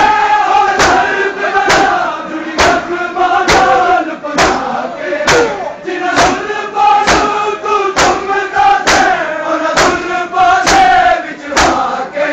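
Shia mourners performing matam: a crowd of men slapping their bare chests in unison, about one sharp strike a second. The strikes fall under the steady chanting of a nauha lament.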